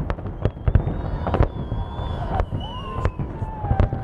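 Fireworks salute shells bursting: a rapid, irregular string of sharp bangs and crackles, several a second, over a steady low rumble.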